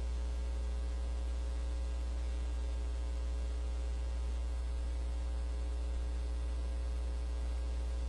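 Steady low electrical hum, like mains hum, with faint steady overtones and nothing else sounding.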